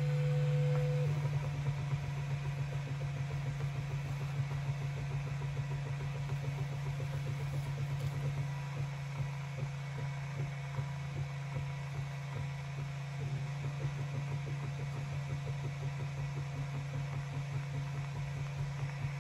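Atomstack A5 Pro laser engraver running a fill engraving: a steady hum from its stepper motors and fan, with a rapid, even pulsing as the head sweeps back and forth in short strokes.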